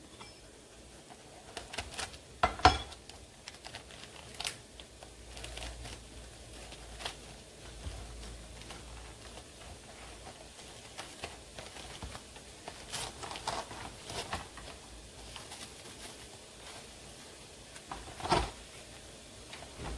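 Plastic cling film crinkling and crackling as it is pulled off a plastic tray of mushrooms, with two sharper rustles, one about two and a half seconds in and one near the end.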